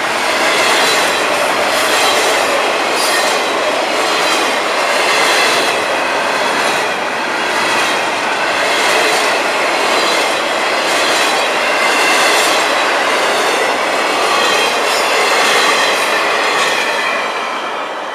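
Double-stack container well cars of a freight train rolling past close by: a steady clatter of steel wheels on rail with regular clicks as the wheels cross the rail joints. It fades as the last car goes by near the end.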